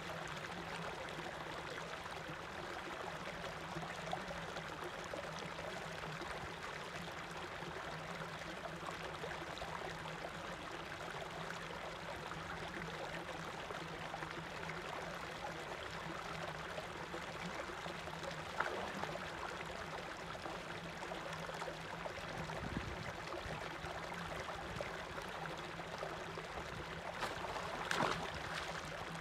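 Water gushing steadily from a pipe outlet into a pond, with fish splashing at the surface around it, once sharply about two-thirds of the way through and loudest in a flurry near the end.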